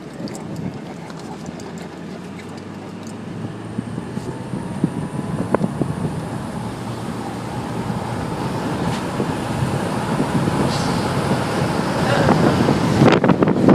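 Car road and wind noise through an open window, growing steadily louder as the car gathers speed, with wind buffeting the microphone near the end.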